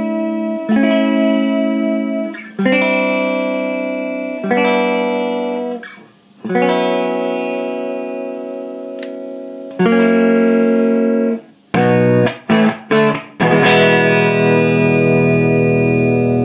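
Gibson ES-335 electric guitar played through a Carlsbro TOP 100 amp head and Marshall 4x12 cabinet. Chords are struck and left to ring about every two seconds, then come a few short chord stabs, then a last chord left ringing.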